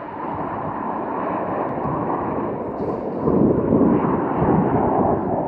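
Jet noise from the Snowbirds' formation of CT-114 Tutor jets, a steady rush that grows louder about three seconds in.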